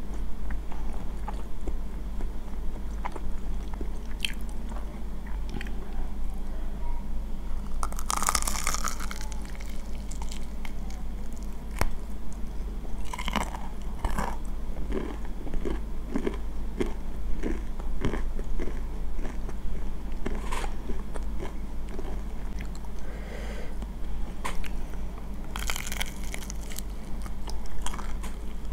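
Close-miked eating: chewing, broken by a few loud crunching bites into the breaded crust of a crispy fried chicken drumstick, with a run of quick, regular chews about halfway through.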